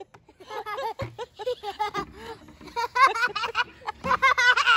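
Young child laughing and giggling in quick, high-pitched peals, loudest about three seconds in and again near the end.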